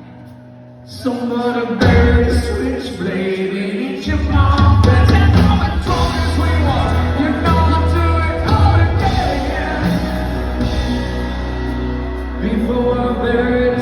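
Live rock band playing with a lead singer, heard from the audience in a large hall. After a quiet first second the band comes in, and the bass and drums get fuller about four seconds in.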